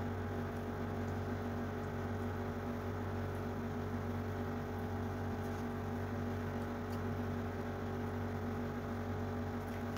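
A steady machine hum with several held tones, unchanging throughout, with a few faint ticks over it.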